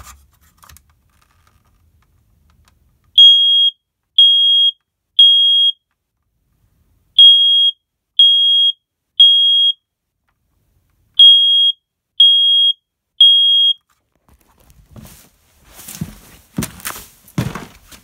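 First Alert smoke alarm sounding its test: three groups of three loud, high-pitched beeps, the temporal-three alarm pattern, with the test button held down. Rustling and knocks follow near the end.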